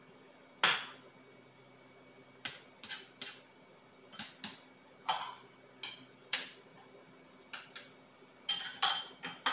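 A cooking utensil clicking and tapping against a nonstick frying pan as noodles are stirred: irregular sharp clicks, with a quick run of clinks near the end. A faint steady hum lies underneath.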